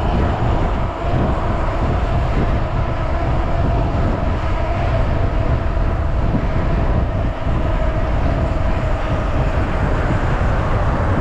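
Wind buffeting the camera microphone as a bicycle rolls at speed, with a steady low rumble and a faint steady hum from the tyres on the road.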